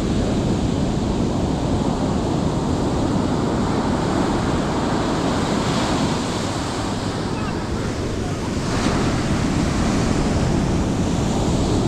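Surf washing onto the beach in a steady rush, with wind buffeting the microphone.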